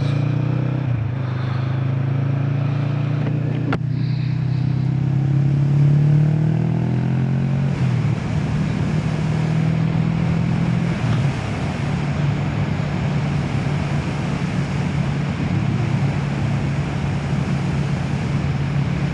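Motorcycle engine pulling away with the revs rising over the first several seconds, a single click about four seconds in, then running steadily at cruising speed with road and wind rush.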